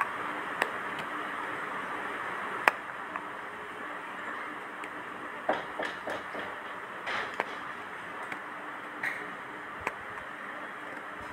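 Steady room hiss with a few faint, sharp clicks and taps scattered through it, most of them in the second half.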